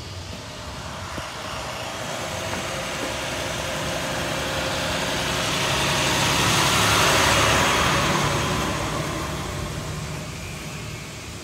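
A road vehicle passes by: its engine and tyre noise swell gradually to a peak about seven seconds in, then fade away.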